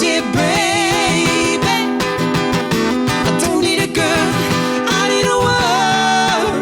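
Live acoustic guitar playing with a voice singing a melody over it, the sung notes wavering with vibrato and held long near the end.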